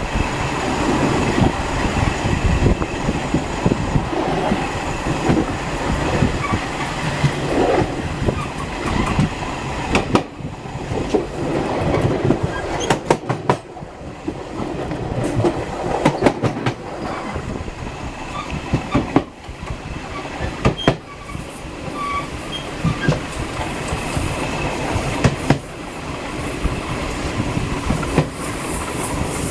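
A train running on the rails: a steady rumble with irregular clicks and knocks from the wheels on the track.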